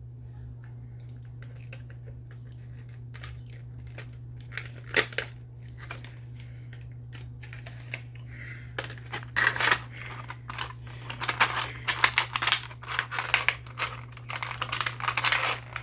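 Plastic toy packaging being handled and opened: scattered clicks and crinkling that grow busier from about halfway through, over a steady low hum.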